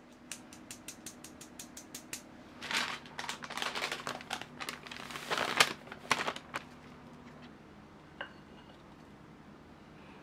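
A sieve tapped in quick even taps, about four a second, as cocoa and flour are sifted onto parchment paper. About two and a half seconds in, the parchment paper rustles and crinkles loudly for some four seconds as it is lifted and bent and the sifted powder slides off it into a glass bowl.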